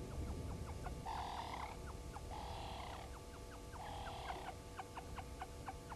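Wild animal calls: three short raspy calls about a second and a half apart, among a run of quick, short chirps several times a second, over a low wind rumble.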